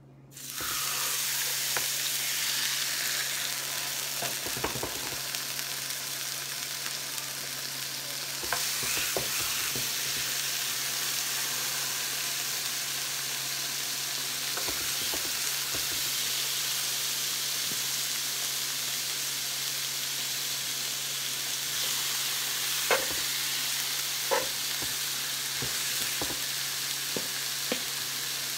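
Marinated pork chops sizzling on a hot oiled flat griddle. The sizzle starts suddenly as the meat goes down and then runs steadily, with a few light knocks now and then.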